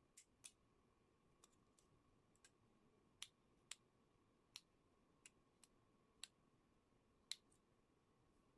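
Near silence broken by about ten faint, sharp clicks at irregular intervals, from small electric kettle parts being handled and fitted back together.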